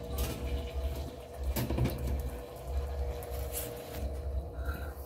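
A few light clicks and rattles of hands working at a wire pet cage, over a low rumble and a faint steady hum.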